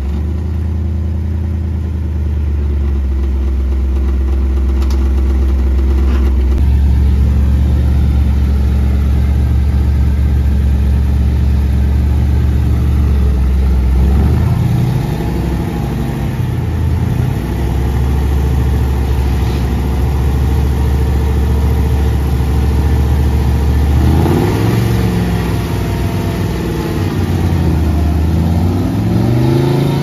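Engine of a lifted mud truck running steadily under load as it crawls through deep creek mud, with revs rising and falling about halfway through and rising again twice near the end as it climbs out up the bank.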